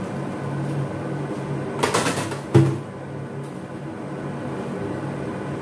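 Kitchen stove sounds: a steady low hum, a brief rustling scrape about two seconds in, then a single sharp knock.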